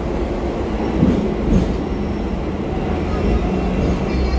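Hong Kong double-decker tram running along street track, heard from on board: a steady rumble and rattle of the car, with a couple of knocks between one and two seconds in.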